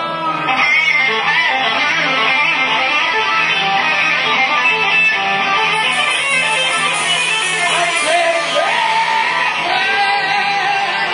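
Live blues band playing a slow blues, with electric guitar to the fore over drums and congas; some notes slide and bend in pitch.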